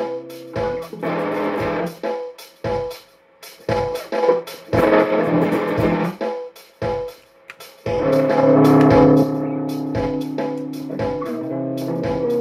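Solid-body electric guitar being played, with held notes and bursts of strummed chords, the loudest chord about eight seconds in. It plays over a steady drum beat.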